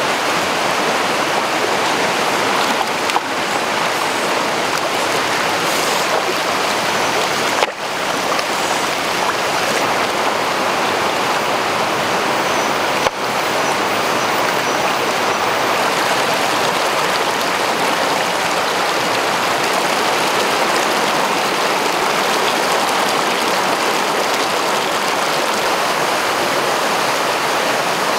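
Fast-flowing river rushing over rocks: a steady, full hiss of running water that does not let up.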